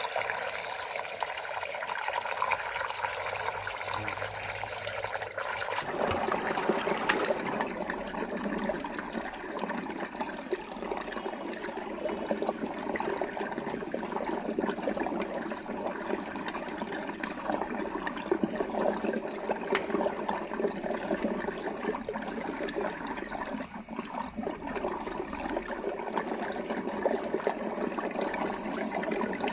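Water swirling in a large whirlpool vortex and draining down a hole: a steady rushing, splashing water noise, whose tone shifts once about six seconds in.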